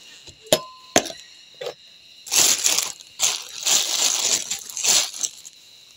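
Two sharp clicks, then a package of oats crinkling and rustling in bursts as it is handled and opened.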